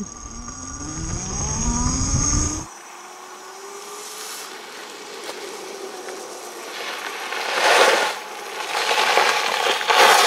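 Electric motorcycle's motor whining and rising steadily in pitch as it accelerates, over wind rumble on the bike-mounted camera, cutting off suddenly after about two and a half seconds. Then the bike's tyres crunch on loose gravel, loudest about eight seconds in and again near the end as it rolls up and stops.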